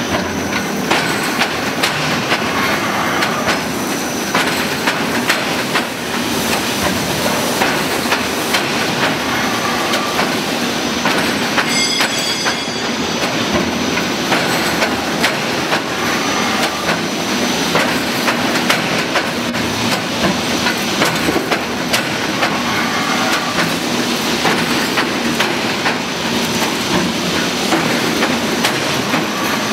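Gabion mesh machine running, weaving hexagonal wire netting: a steady, loud mechanical clatter of rapid clicks and knocks.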